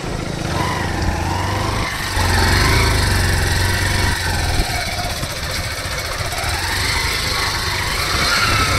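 Motorcycle engine running and being ridden off-road, its pitch rising and falling with the throttle. It gets louder about two seconds in.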